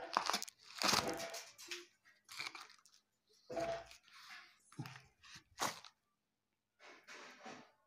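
Cardboard packing being pried and torn out of a fan box set in a concrete ceiling slab: irregular crunching, tearing scrapes and a few sharp knocks.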